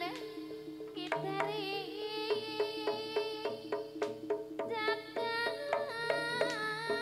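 Live jaranan music: sharp hand-drum strokes and repeated gong-chime notes in a steady beat, under a high melody line that wavers and bends in pitch.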